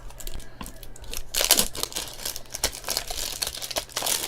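Crinkling and rustling of trading-card packaging and cards being handled and unwrapped, in quick irregular strokes.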